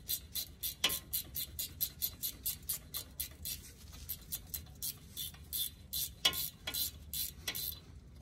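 Socket ratchet clicking steadily, about four to five clicks a second, as a tight brake caliper bolt on a Jeep Wrangler's front knuckle is backed out with a half-inch socket. A few louder clicks come near the end, then the clicking stops.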